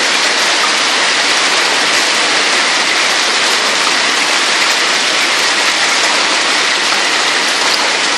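Violent hailstorm: hailstones larger than a one-franc coin and heavy rain coming down hard on pavement and buildings, making a dense, steady roar.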